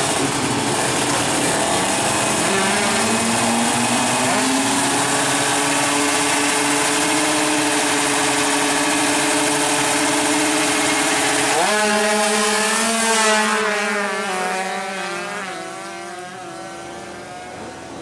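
Two-stroke drag-race motorcycle engines held at high revs, their pitch climbing steadily. Near the two-thirds mark the pitch jumps up sharply, then falls away and fades as the bikes go off into the distance.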